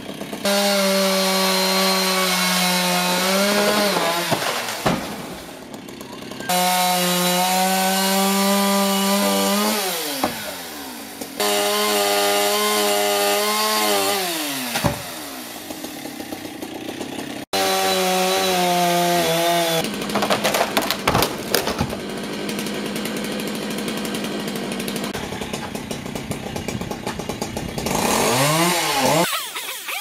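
Two-stroke chainsaw running at full throttle in several long stretches while cutting willow limbs. Its pitch slides down each time the throttle is let off, and there is a quick rev up and down near the end.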